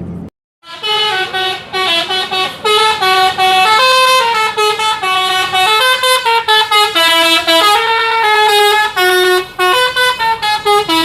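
Bus telolet basuri horn, a multi-tone musical air horn, playing a melody: a run of short stepped notes that changes pitch every fraction of a second, starting about a second in after a brief silence.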